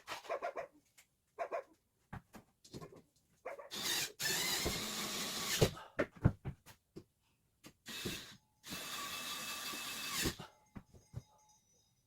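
Power drill running in two bursts of about two seconds each, with scattered clicks and knocks between them.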